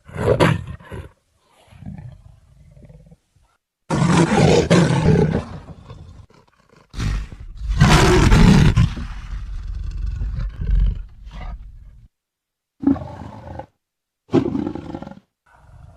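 Leopard roaring in a series of separate calls with silent gaps between them: a short call at the start, a longer one about four seconds in, the longest from about seven to twelve seconds, then two short calls near the end.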